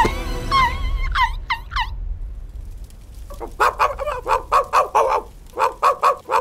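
Cartoon dog's voice: a few short rising yelps, then after a pause a fast gobbling run of yaps, about five a second. It is the dog raising the alarm at a house fire.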